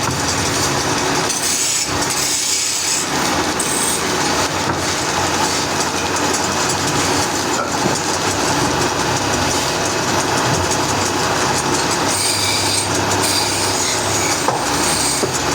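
Woodworking machinery running steadily under load, with a continuous noise of wood being cut and a low machine hum beneath it.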